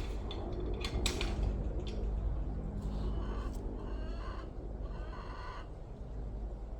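Chickens calling: two short calls about three and five seconds in, over a steady low rumble, with a few sharp clicks or knocks in the first second.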